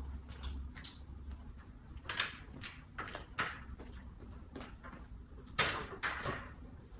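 Aluminium stepladder being folded and carried off: a series of separate knocks and clatters, the sharpest a little before the end, over a steady low hum.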